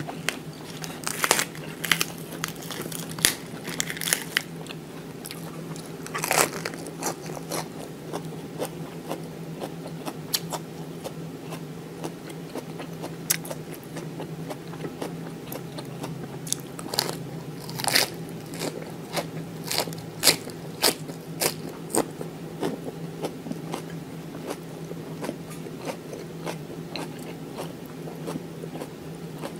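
Close-up eating sounds: crisp crunching bites and chewing of fresh lettuce leaves, with the crackle of a leaf being torn, coming in irregular bursts over a steady low hum.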